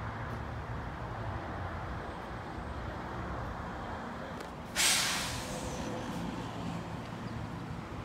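Steady low outdoor rumble, broken about five seconds in by a sudden loud hiss that fades away over about a second.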